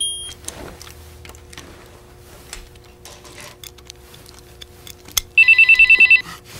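Faint clicks and handling noises from working at a safe's front, with a short electronic beep at the start. About five seconds in, a mobile phone starts ringing loudly with a fast trilling ring.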